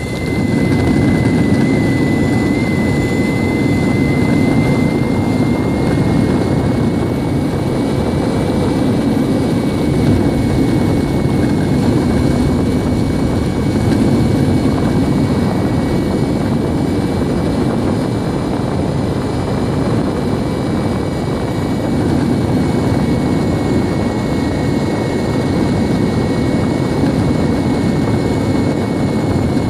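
Metroboard electric skateboard running fast on rough asphalt: a steady roar of wheels and rushing air, with a thin high motor whine on top that dips and rises a little in the first few seconds.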